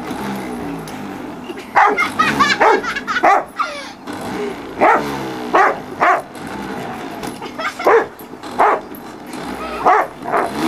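A black Labrador-type dog barking in short, sharp barks, about a dozen of them at uneven intervals, as it goes for an electric hover mower. The mower's motor hums steadily underneath.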